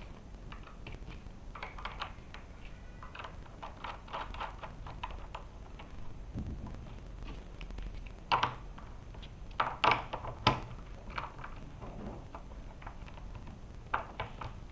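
Small clicks and taps of a wheel, axle nut and skate tool being handled on an electric skateboard's truck, with a few sharper, louder clicks past the middle.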